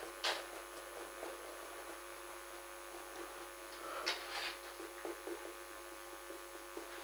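Marker pen stroking on a whiteboard in a few short, scratchy strokes, with faint ticks, over a steady electrical hum.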